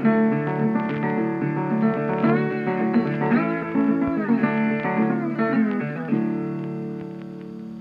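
Background music: a plucked-string instrumental with sliding notes, ending on a held chord about six seconds in that rings out and fades.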